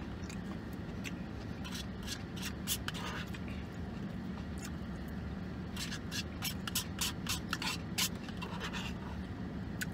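A person chewing and smacking food with the mouth: scattered short clicks, busiest about six to eight seconds in, over a steady low hum in a car cabin.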